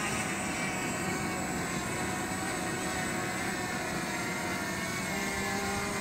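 DJI Mavic Mini quadcopter's propellers and motors buzzing steadily as it hovers just after takeoff.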